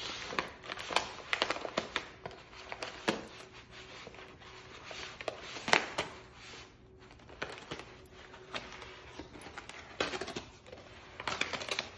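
Brown paper bag crinkling, rustling and tearing in irregular bursts of crackles as a small dog bites and tugs at it.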